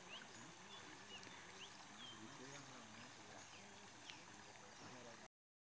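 Faint rural outdoor ambience: scattered short bird chirps over a faint low wavering sound, cutting off suddenly near the end.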